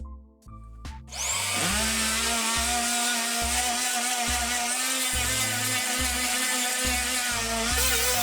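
A small electric motor starts about a second in, its whine rising quickly, then runs steadily with a loud hiss. Background music with a steady bass beat plays underneath.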